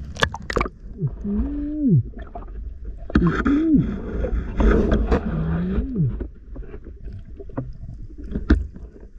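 Water sloshing and rumbling against a camera held underwater, with several sharp knocks and three short muffled hums that rise and then fall in pitch.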